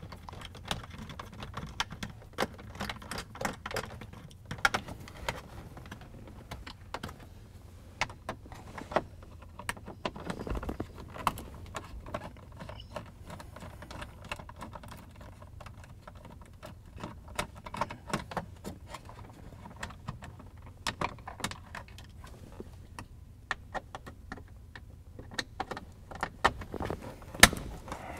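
Irregular light clicks and small rattles of a nut driver with a Torx bit working screws out of a car's plastic instrument cluster and dash, with one sharper click near the end.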